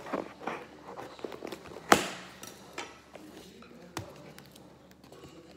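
A small knife slitting packing tape on a cardboard box in short scraping strokes, then a single sharp, loud clack against the granite countertop about two seconds in, followed by cardboard handling as the box is opened and a lighter knock about four seconds in.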